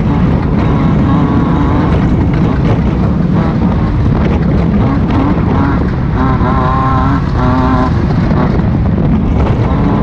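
A Class 5-1600 off-road race car's air-cooled 1600 cc VW engine running hard and steady. A brief higher-pitched tone sounds over it between about six and eight seconds in.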